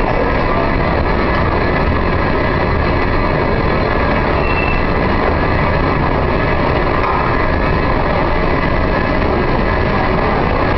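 A long Metro escalator running: a steady loud rumble and hiss with faint steady whining tones and no breaks.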